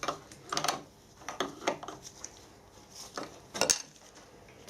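Steel tooling being handled while a square collet block is set up: about six sharp metal-on-metal clinks and knocks at uneven intervals, the loudest near the end.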